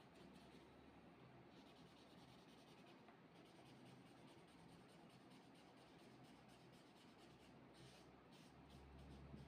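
Faint scratching of a coloured pen drawing lines on paper.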